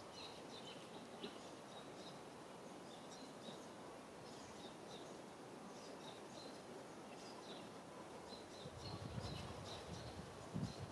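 Faint outdoor ambience: a steady hiss with short high chirps scattered throughout, and a few low thumps near the end.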